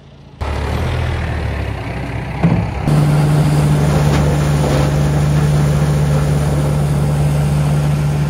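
Teagle Tomahawk 9500 straw blower running behind a tractor, its fan throwing chopped straw: a loud, steady mechanical hum under a rushing hiss. It comes in suddenly about half a second in, with a brief knock about two and a half seconds in, and grows louder and steadier about three seconds in.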